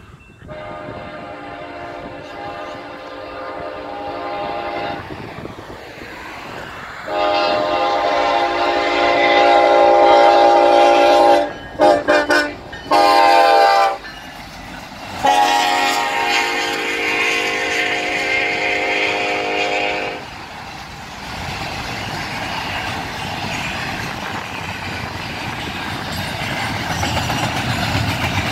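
Union Pacific SD70ACE diesel locomotive's multi-chime air horn sounding for a grade crossing: two long blasts, a few short ones, then a final long blast, louder as the locomotive draws near. After that comes the steady rumble and wheel clatter of double-stack container cars rolling past.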